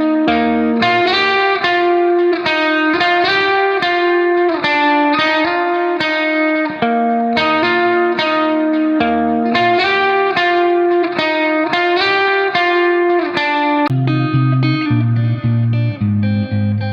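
Background music: a melody of plucked guitar notes, about two to three a second, with a deeper bass line coming in near the end.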